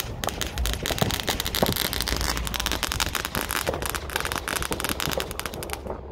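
Fireworks crackling and popping, a dense rattle of many small bangs that stops abruptly near the end.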